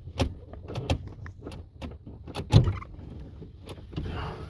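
Clicks and knocks from a 2008 Toyota Sienna's sliding-door inside handle and latch mechanism being pulled again and again, with one louder thump about two and a half seconds in. The latch only releases some of the time.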